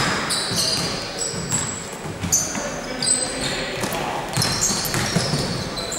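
Basketball game in play: the ball bouncing on the court several times, with short high sneaker squeaks and voices in the background.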